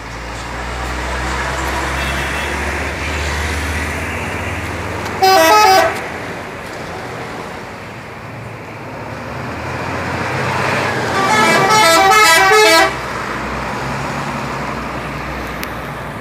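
Indonesian bus telolet horns: a short multi-note blast about five seconds in, then a longer melodic telolet tune with stepping pitches from about eleven to thirteen seconds. Between and under them run a bus engine's low rumble, strongest in the first few seconds, and road traffic.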